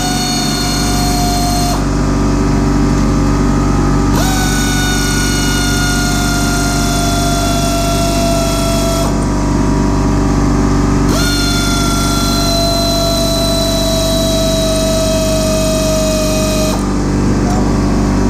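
A handheld electric power tool running in long spells of several seconds, its whine slowly dropping in pitch during each run, with short pauses between them. A steady low hum runs underneath throughout.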